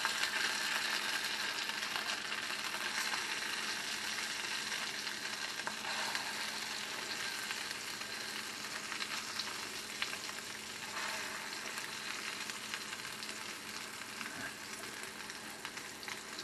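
Boiled pierogies frying in hot butter in a frying pan: a steady sizzling hiss that eases slightly as it goes on.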